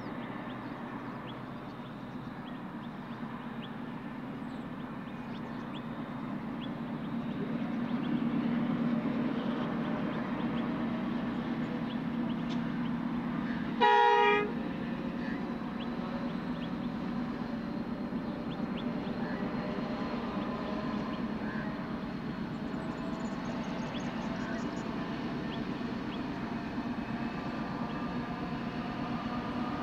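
Diesel-electric freight locomotives working hard as they pull a heavy train away from a signal: a steady distant low rumble that grows louder a few seconds in. About halfway through the locomotive sounds one short blast of its multi-tone horn.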